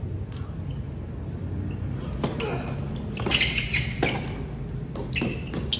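Tennis ball struck by rackets and bouncing on a hard court during a doubles rally: sharp pops about two seconds apart. A cluster of louder, higher sounds comes about midway. A steady low hum runs underneath.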